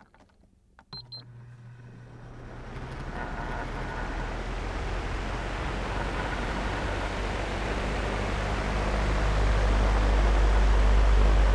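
Oscillating house fan switched on, with a few sharp clicks about a second in. Its motor starts to hum and the blades spin up into a steady rush of air that slowly swells louder toward the end.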